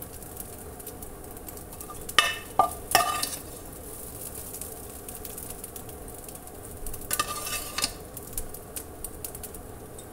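A metal spoon scraping and clinking as stir-fried greens are scooped from a hot frying pan into a glass bowl, with two louder scoops about two seconds in and about seven seconds in. Under them is a steady faint crackle of the food still sizzling in the pan.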